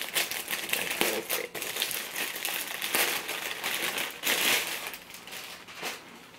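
Packaging being handled and unwrapped, crinkling and rustling in quick, irregular bursts that die down near the end.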